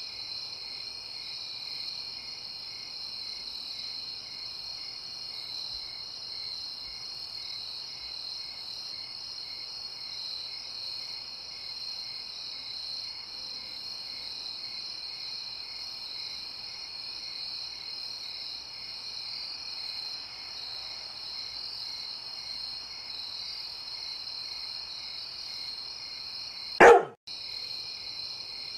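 Crickets chirping in a steady rhythm, about two or three pulses a second. Near the end there is one short, loud dog bark.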